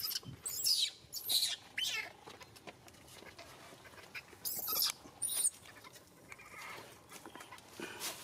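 Newborn macaque infant giving shrill, high-pitched distress cries, about five short ones: three in quick succession in the first two seconds, two more around the middle.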